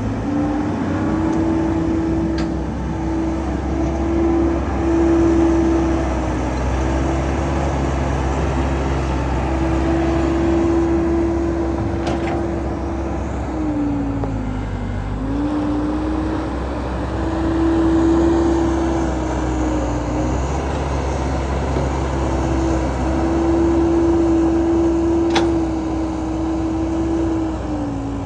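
Kubota DC70 rice combine harvester's diesel engine and machinery running steadily under harvesting load, with a strong steady hum. The pitch sags briefly about halfway through and again at the end, as the engine is loaded down and recovers.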